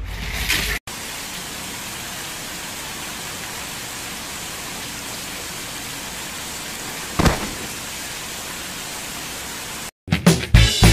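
Heavy rain pouring steadily on a street, with one brief loud thud about seven seconds in. Upbeat music with drums and guitar starts near the end.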